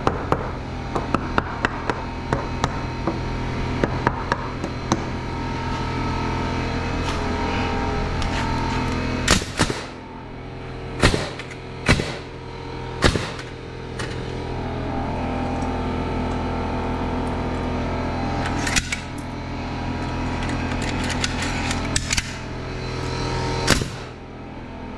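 Light hammer taps on wood at the start, then a cordless nail gun driving nails into wooden wall blocking: several loud single shots, a few in quick succession near the middle, over a steady motor hum.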